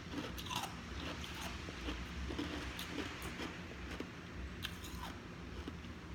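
A person crunching and chewing ice close to the microphone: a scatter of short, sharp crunches.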